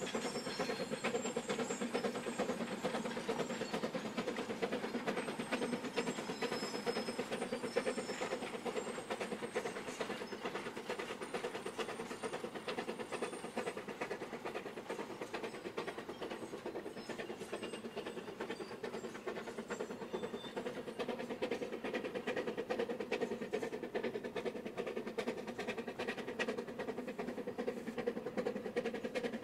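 China Railways Type C2 narrow-gauge steam locomotive hauling a train, working steadily: a continuous rapid beat of exhaust and running noise at an even level.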